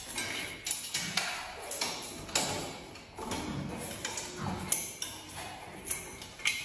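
Irregular light clicks and metallic taps, a few each second, as a cat climbs a metal stair safety gate, its claws and the gate's bars knocking, while a dog scrabbles beside it.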